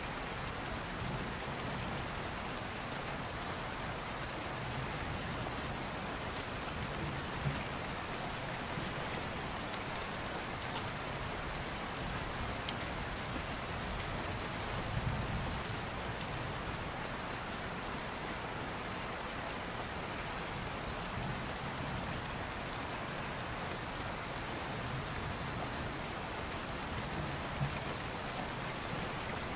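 Steady rain falling, an even hiss and patter with a few louder ticks scattered through it.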